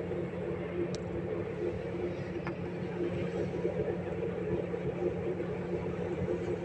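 Steady rumble and hum of a regional train in motion, heard from inside the passenger carriage.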